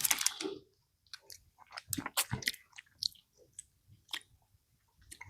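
Someone chewing and biting on a chili-coated Rocaleta lollipop, working towards its gum centre: scattered small crunches and wet clicks of the mouth, faint and irregular.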